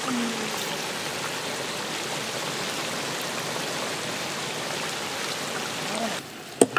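Chopped snake gourd sizzling steadily in a wide steel frying pan, an even hiss with no pauses. The sizzle cuts off suddenly about six seconds in, followed by a sharp click.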